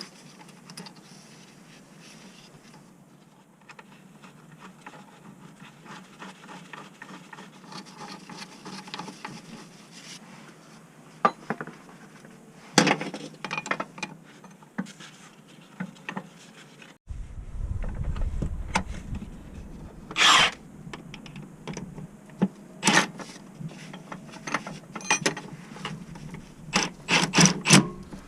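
Workshop handling noise from tools and metal parts: rubbing and scraping at first, then a series of sharp knocks and clanks in the second half.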